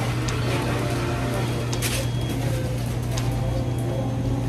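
Steady low machine hum, with scattered light clicks and clatter and faint voices in the background.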